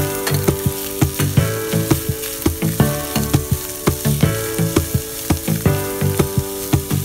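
Mashed potato and chopped onion sizzling in hot oil in a steel pan while a spatula stirs them, with background music playing over it.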